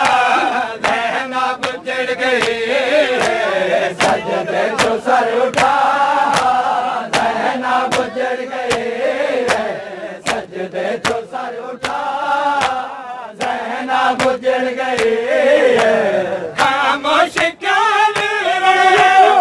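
Men chanting a Punjabi/Urdu noha together, overlaid with sharp slaps of open hands on bare chests (matam) repeated in time with the chant.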